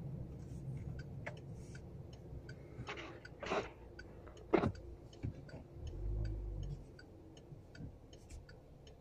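Car turn-signal indicator ticking steadily, about two to three clicks a second, over the low rumble of the car's engine. A brief sound sliding down in pitch comes a little past halfway, and the engine swells as the car pulls off about six seconds in.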